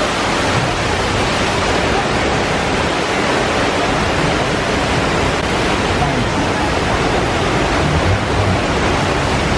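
Staged flood effect on a theme-park studio tour: a large volume of water gushing and splashing across a set, a steady, loud rush with no break.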